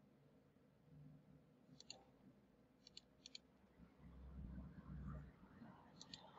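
Faint computer mouse clicks, four of them, each a quick press-and-release, as colours are picked and shapes filled. About four seconds in there is a soft low rumble.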